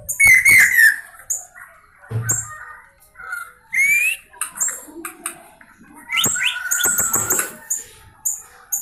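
A caged white-rumped shama (murai batu) calling in short groups of high chirps and quick squeaky glides, with gaps between them. Its wheezy 'ngik' squeaks are taken by its owner and the seller for a sign of breathing trouble and hoarseness.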